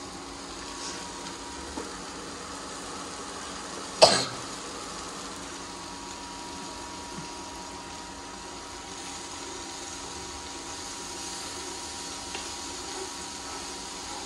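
A pan of onion and drumstick curry base cooking on an induction cooktop: a faint, steady sizzle over a steady low hum. One short, sharp noise about four seconds in is the loudest sound.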